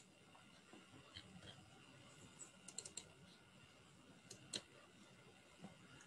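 Faint clicks of a computer mouse, some single and some in quick little runs like double-clicks, the loudest about four and a half seconds in, over near-silent room tone.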